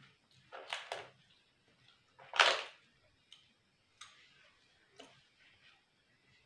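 Crisp fried papad being bitten and chewed close to the microphone: a couple of crunches near the start, one loud crunch about two and a half seconds in, then a few faint crackling chews.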